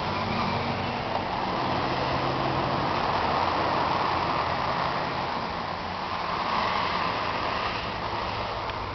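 John Deere 350D LC excavator's diesel engine running steadily at idle: a constant low hum with a broad rushing noise above it.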